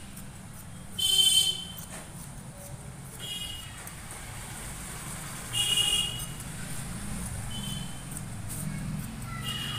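Short high-pitched toots over a steady low hum. The two loudest come about a second in and just after the middle, each about half a second long, with fainter ones later.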